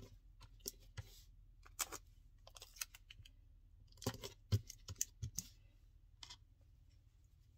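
Scattered small clicks and taps of a metal swivel keychain clasp being handled on a wooden tabletop, in two brief clusters: one over the first two seconds and a busier one around four to five and a half seconds in, with a last single tap a little later.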